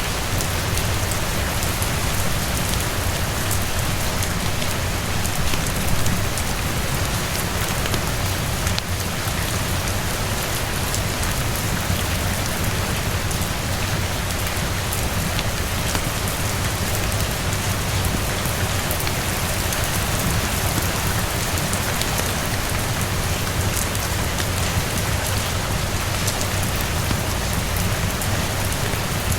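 Steady rain falling and pattering on surfaces, a dense even hiss scattered with many small drop ticks.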